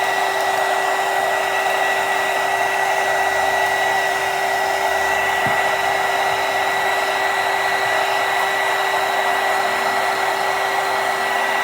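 Electric hot-air blower running steadily with a constant whine, blowing heat onto shrink wrap to shrink it around a small sublimation tumbler.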